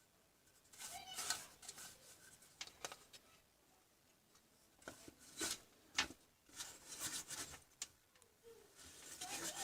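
Quiet, irregular clicks, scrapes and rubbing strokes, like something being handled or worked on by hand.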